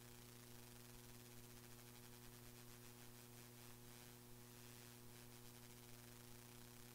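Near silence: only a faint, steady electrical hum and hiss. The recording's audio is missing here because of a technical fault.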